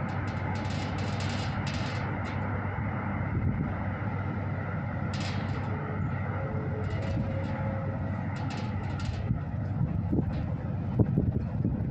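Railway station platform ambience: a steady low rumble of traffic and machinery, with short scattered hissing noises over it.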